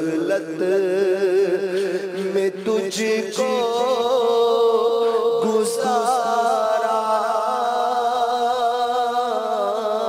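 A man's voice reciting a devotional nasheed without instruments, drawing out long wavering notes that glide slowly from one pitch to the next.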